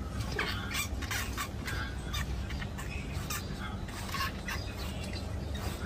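A rat squeaking in short, irregular squeaks, several a second, over a steady low hum.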